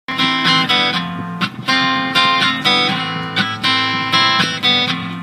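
Acoustic guitar strumming chords in a steady rhythm, an instrumental intro with no voice yet.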